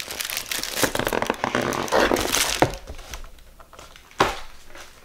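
Thin plastic packaging bag crinkling and rustling as it is handled, dense for the first two seconds or so and then quieter, with one sharp knock about four seconds in.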